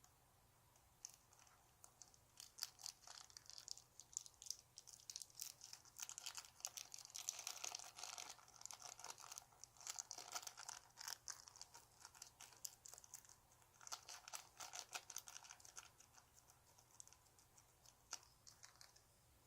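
Faint, irregular crinkling and crackling of a thin plastic bag or wrapper being handled, busiest in the middle and tailing off toward the end.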